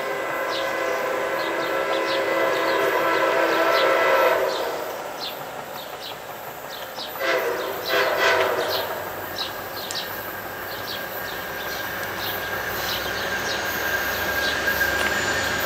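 Multi-note air horn of an approaching train: one long blast that stops about four seconds in, then two short blasts a little after halfway. The train's rumble slowly builds toward the end.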